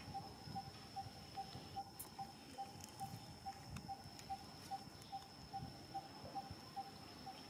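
Faint outdoor ambience: a steady high insect whine with a soft, even note repeated about two or three times a second, over light rustling in dry leaf litter.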